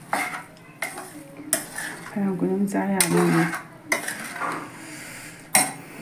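A metal spoon scraping and clinking against a non-stick wok while stirring a thick fish-roe pickle mixture, in several sharp strokes spread over the few seconds.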